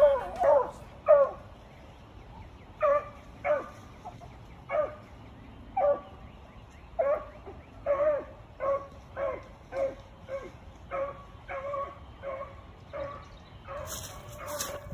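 Beagles baying on a rabbit's track: a string of short calls, each dropping in pitch at its end, coming faster, about two a second, in the second half.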